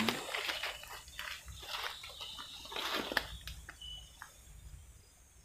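Water sloshing and splashing in several short bursts with scattered clicks, loudest in the first three seconds and then fading, with a brief insect chirp now and then.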